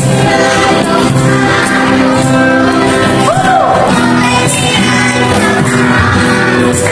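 A group of children singing an action song to a strummed acoustic guitar, with clapping along. About three seconds in, one voice whoops up and back down.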